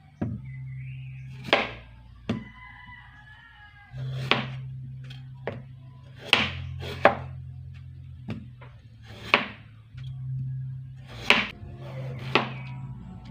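Chef's knife slicing a chayote on a plastic cutting board: about ten separate chops, each a sharp knock of the blade through the squash onto the board, spaced unevenly about a second apart. Soft background music runs underneath.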